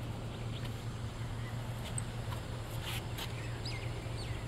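A few short bird calls over a steady background rush, the two sharpest about three seconds in.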